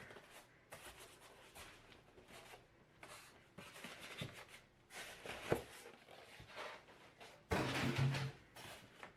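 Packaging being handled as items are taken out of a large cardboard box: scattered rustling and a few sharp knocks. A louder stretch of handling comes near the end, with a brief low voice-like sound.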